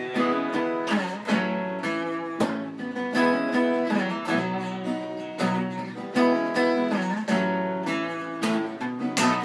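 Three acoustic guitars strumming chords together in an instrumental passage of a country song, with no singing.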